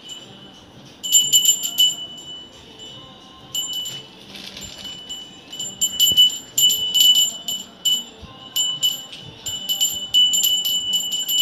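A puja hand bell (ghanti) rung in quick, repeated strokes with one clear ringing tone. It starts about a second in, pauses briefly, then rings on almost without a break.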